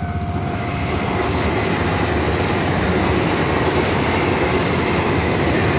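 TEMU2000-series Puyuma tilting electric multiple-unit express passing close by at speed: a rush of wheel-on-rail and air noise that builds about a second in and then holds steady.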